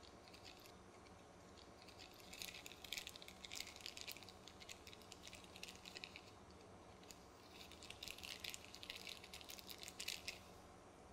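Small clear zip-top plastic bag of gaskets being handled and opened, crinkling faintly in two spells of crackling, from about two seconds in and again from about eight seconds in.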